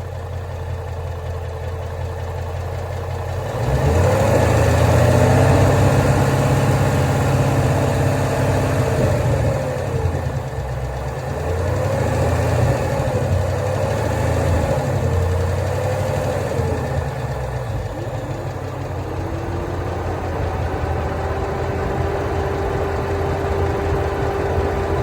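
A 2011 Ford Mustang GT's 5.0-litre V8 running. About four seconds in it gets louder and its pitch rises and falls several times as the revs go up and down, then it settles back to a steady idle.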